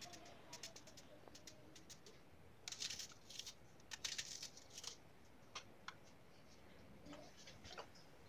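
Faint crisp crackling and light pattering of chopped onion being broken apart by hand and dropping into an unglazed clay tagine base, in two short spells about three and four seconds in, with scattered small clicks between.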